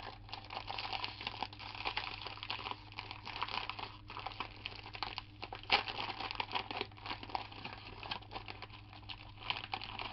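Plastic snack wrapper crinkling and crackling as it is handled and opened, in a continuous irregular stream with one sharper crackle about six seconds in.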